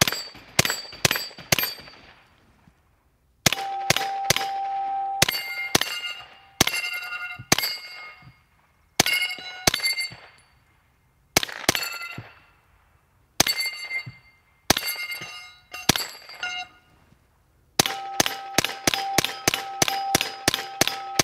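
Suppressed Ruger PC Charger 9mm pistol firing at steel targets, each shot followed by the ringing of struck steel plates. Shots come singly and in pairs with short pauses, then in a fast string of about ten near the end.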